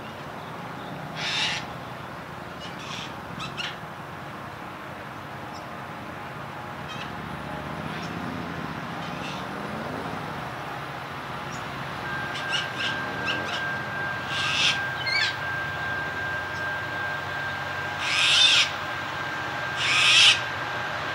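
Birds calling in short, loud bursts, the loudest two near the end, over a low rumble that grows steadily louder as a distant diesel grain train approaches. About halfway through, a steady high tone comes in and holds.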